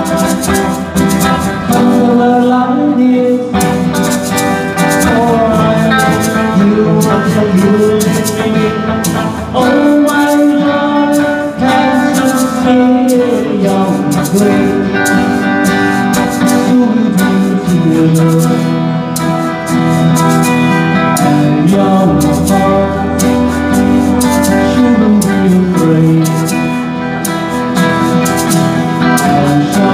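Live band playing a 1960s pop song, with guitars and a singer carrying the melody.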